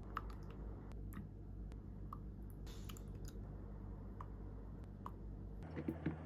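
Faint kitchen food-preparation sounds: scattered small clicks, about one a second, over a low steady hum, with a brief soft rustle near the middle.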